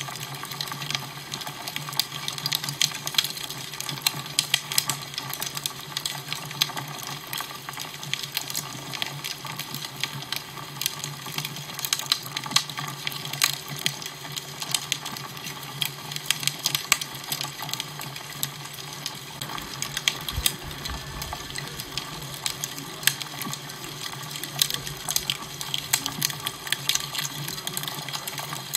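Fire crackling: a dense, irregular stream of small pops and snaps over a steady hiss, with a low steady hum underneath.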